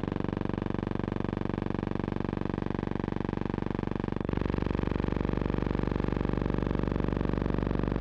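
A steady, buzzing mechanical drone with a fast even pulse, stepping slightly louder and lower about four seconds in.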